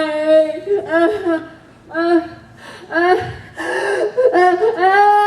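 An adult performer's wordless, theatrical vocal cries and gasps: about six drawn-out voiced sounds one after another, the pitch sliding within each, the last one rising.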